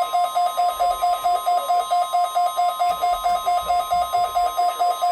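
NOAA Weather Radio alert sounding during a Required Weekly Test: a steady high tone with a fast beeping alarm over it, about six beeps a second.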